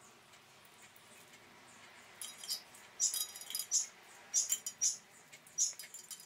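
Stuffed grape-leaf rolls being packed by hand into a pot: short, high squeaky rustles of the leaves rubbing against each other and the pot. They come as about a dozen quick squeaks, starting about two seconds in.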